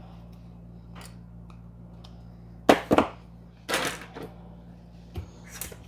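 Hand assembly of a 3D printer's printed extruder parts and hardware: two sharp knocks about three seconds in, a short clatter just under a second later, then a few light clicks, over a steady low hum.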